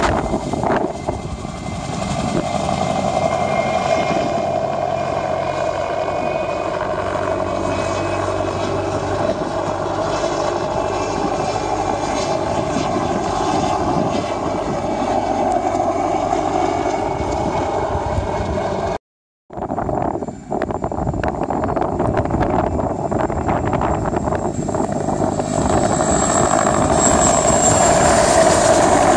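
PZL Mi-2 helicopter's twin turboshaft engines and rotor running steadily in flight. The sound breaks off for a moment about two-thirds through, and afterwards a thin, high turbine whine comes in and rises slightly toward the end.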